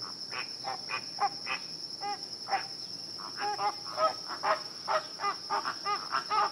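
A flock of flamingos calling: short honks, several a second and often overlapping, growing busier after a few seconds. A steady high-pitched insect drone runs underneath.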